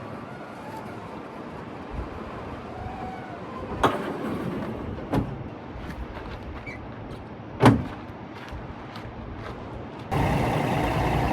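A few sharp metal clunks from the truck's hood and body during a pre-trip check, the loudest about three-quarters of the way through. About ten seconds in, a loud steady truck engine running comes in suddenly.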